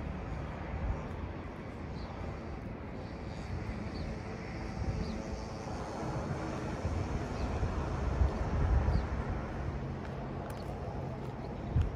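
Wind buffeting the microphone in low, gusting rumbles over a steady outdoor street hum, swelling a little near the end, with a few faint high chirps.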